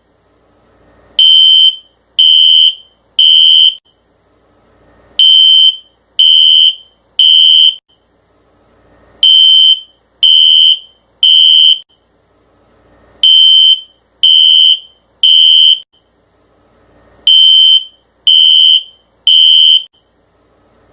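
Fire alarm beeping loudly in the temporal-three evacuation pattern: a high-pitched tone in groups of three short beeps, with a group about every four seconds.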